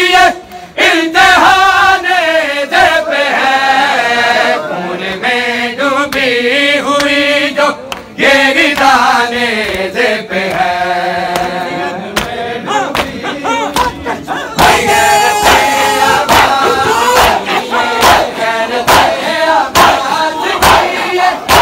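Men's voices chanting a noha (Urdu mourning lament) together, led on a microphone. About fourteen seconds in, a crowd joins with sharp rhythmic slaps of hands on bare chests (matam) over the chanting.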